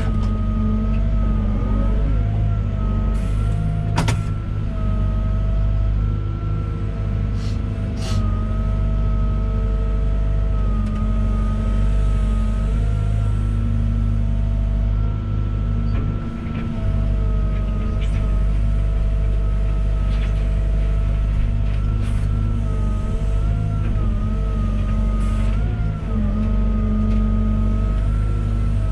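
Volvo EWR150E wheeled excavator's diesel engine running steadily under working load, with a whine that wavers slightly in pitch. A few sharp knocks sound over it.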